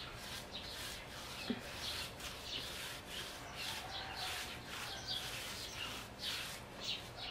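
Paintbrush strokes on a window frame: a repeated brushing rub, about two strokes a second.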